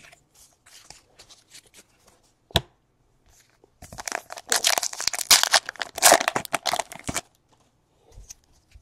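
A sharp tap, then a basketball trading card pack wrapper torn open and crinkled for about three seconds.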